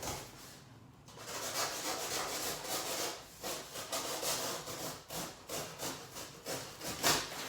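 Knife sawing through a cardboard box, a quick run of rasping strokes that starts about a second in.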